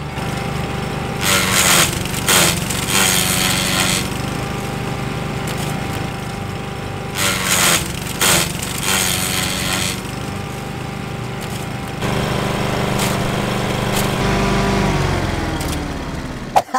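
Masport petrol rotary lawn mower running steadily while a leafy branch is pushed into its deck, the blade shredding it in two spells of loud, harsh noise. Near the end the engine winds down and stops.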